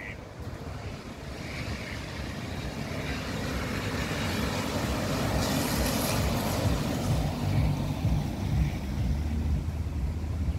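A car driving past on wet asphalt, its tyre hiss building, loudest about six seconds in, then fading away.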